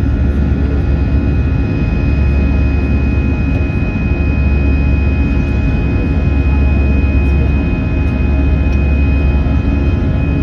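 Steady jet airliner cabin noise: a loud low rumble with a constant high-pitched tone over it.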